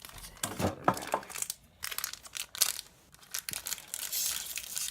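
Pokémon booster pack's foil wrapper crinkling and tearing as it is pulled open by hand, in irregular spurts, with a longer stretch of crinkling near the end.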